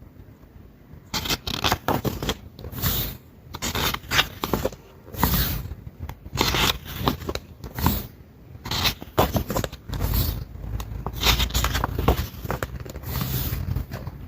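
Album packaging being handled and opened: irregular scraping, rustling and tearing sounds in quick bursts.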